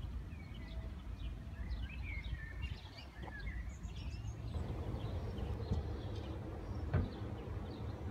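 Birds chirping and singing over a low steady rumble. After a change about halfway, the birdsong is sparser, and a single sharp knock comes near the end.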